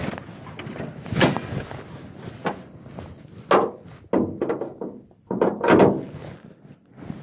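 A series of irregular knocks and clunks, the loudest a little over a second in, at about three and a half seconds, and a cluster around six seconds.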